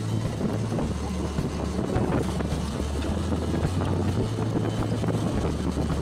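Motorcycle engine running at road speed, with wind noise on the microphone.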